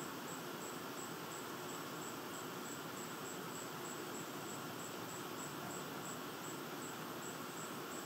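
A singing insect pulsing in a high pitch at a steady rate of about three times a second, over a steady outdoor hiss.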